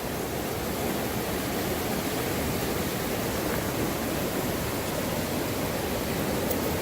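Steady rushing of fast-flowing water from a stream current.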